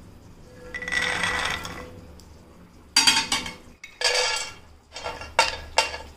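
Cashews and pistachios poured from a steel measuring cup into an empty stainless steel pan, clattering and rattling on the metal in two pours about 3 and 4 seconds in, followed by a few separate clicks as the last nuts drop. About a second in, a brief rattle with a ringing tone comes first.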